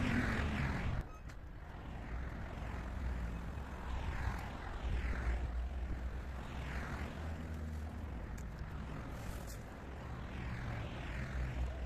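Outdoor background of low wind rumble on the microphone, with a hiss of road traffic that swells and fades several times.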